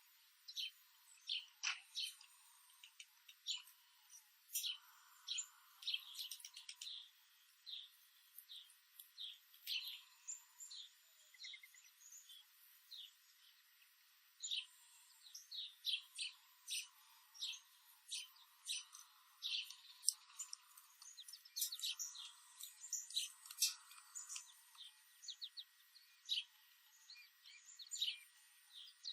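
Wild songbirds chirping: many short, high chirps in quick, irregular succession, a few more crowded in the second half.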